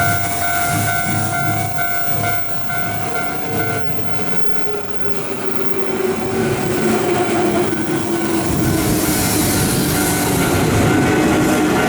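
Hanshin electric train running past and slowing, its motor whine falling steadily in pitch from about four seconds in, over rolling rail noise. Steady high ringing tones sound at the start.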